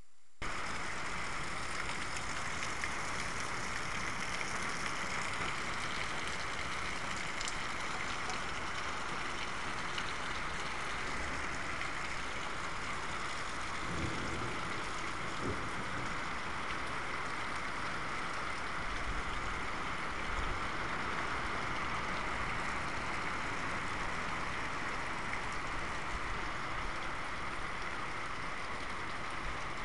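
Steady rain falling during a thunderstorm, an even hiss throughout, with two faint low thumps about halfway through.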